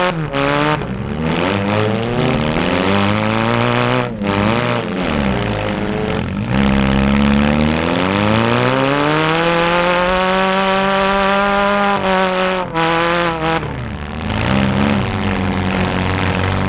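Small demolition-derby car engines revving hard, their pitch climbing and falling again and again as the drivers accelerate and back off, with a couple of brief lifts off the throttle.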